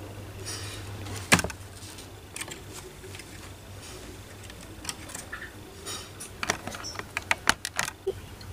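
A caged collared dove moving about on its wooden perch: scattered sharp clicks and scrapes, one loud one about a second in, then a quick run of clicks near the end.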